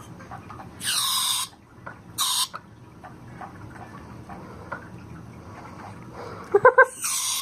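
Broken canned air horn letting its gas out in three short hissing spurts instead of sounding its blast. Just before the last spurt it gives three quick, weak pitched toots.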